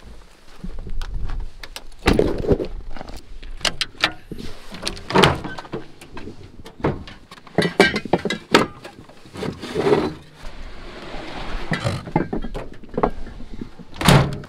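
Hurried handling noises in and around a pickup truck: irregular clicks, clunks and rustling as doors and camping gear are handled, with a heavy thunk near the end.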